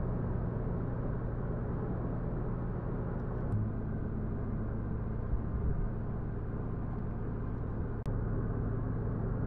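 Inside the cabin of a Suzuki Swift Sport (ZC33S) cruising at highway speed: steady tyre and road rumble under a constant low engine drone from its 1.4-litre turbocharged four-cylinder.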